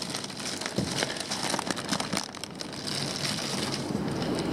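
Plastic fish-shipping bags crinkling and rustling as they are handled, a dense run of small crackles.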